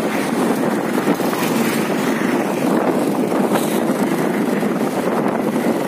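Steady rush of wind and motorcycle engine and road noise while riding, picked up by a phone microphone.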